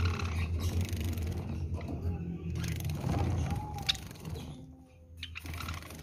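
A low steady drone, loudest through the first few seconds and dying away about five seconds in. Over it, Java sparrows splash and flutter in a water dish, and there are a few short high chirps in the second half.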